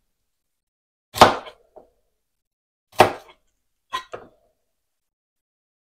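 Kitchen knife knocking on a cutting board while cutting a garlic clove: two sharp knocks about two seconds apart, then two lighter ones in quick succession about a second later.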